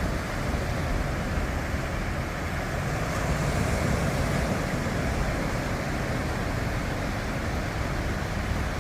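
Steady noise of wind and sea waves, with wind rumbling on the microphone.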